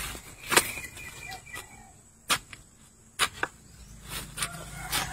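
A long-handled digging tool strikes sharply into soil and banana root at the base of a banana plant, about four hard chops spaced roughly a second apart, cutting away a sucker from the mother plant.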